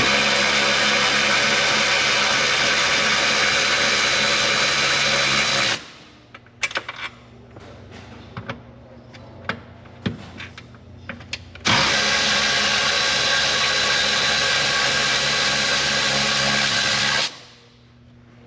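Electric speed ratchet running in two bursts of about five and a half seconds each, spinning out intake manifold bolts that were loosened by hand first. Light clicks and knocks of tool handling fall in the pause between the runs.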